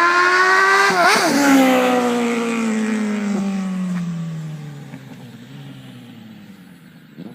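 Suzuki Bandit 650S inline-four motorcycle engine revving hard and loud, with a brief dip in the note about a second in, then falling steadily in pitch and fading away over several seconds.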